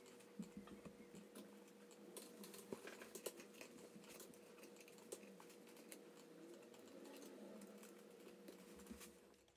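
Faint small clicks and scratches of fingers working the taped display cable and its metal latch loose from a 12-inch MacBook's logic board, over a faint steady hum.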